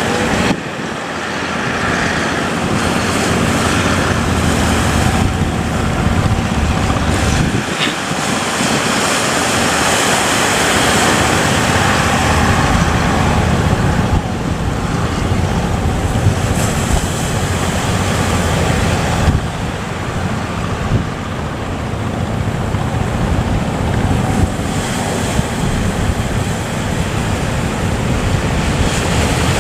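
Wind buffeting the microphone over the steady rush of sea waves around a boat at sea, with slow swells and dips in loudness.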